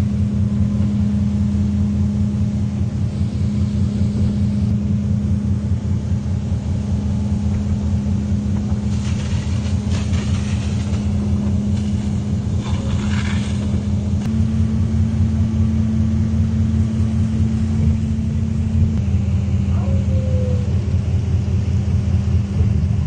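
Fire boat's engine running steadily with a deep hum that steps up slightly in pitch about two-thirds of the way through and drops back a few seconds later. There are short bursts of hiss about halfway through.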